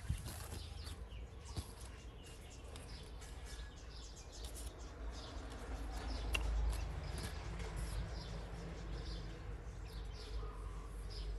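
Outdoor ambience: small birds chirping on and off over a steady low rumble.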